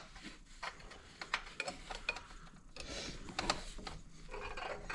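Scattered light metallic clicks and small knocks of a spring puller and springs being worked and hooked into place by hand.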